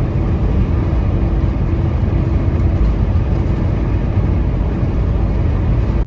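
Loud, steady road and engine noise of a vehicle driving at speed, with a steady hum under it, that cuts off suddenly at the end.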